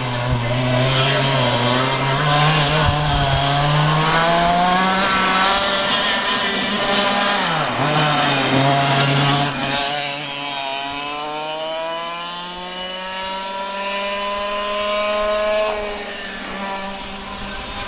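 Racing kart engine running at high revs, its pitch rising and falling as it accelerates and slows for corners; a dip in pitch about eight seconds in, then a long rise in pitch from about ten seconds in that drops off near sixteen seconds.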